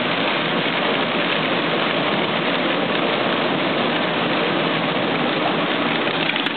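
Coffee bean grading machine running, its stacked screens shaking as the dried beans rattle across and through them, over a steady motor hum. A click comes near the end.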